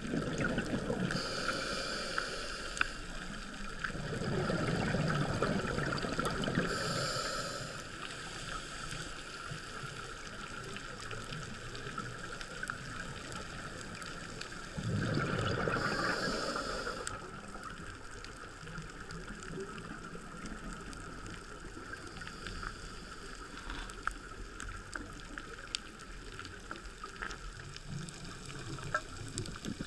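Muffled underwater ambience heard through a camera's underwater housing. Twice, about four seconds in and again at about fifteen seconds, a louder rushing burst of bubbling comes through, typical of a scuba diver exhaling through a regulator, along with shorter hissy bursts.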